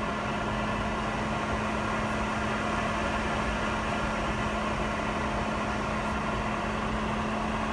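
Steady cabin noise inside a Boeing 717-200 airliner taxiing: the even rushing hum of its rear-mounted Rolls-Royce BR715 turbofan engines and cabin air system, with a steady low tone running under it.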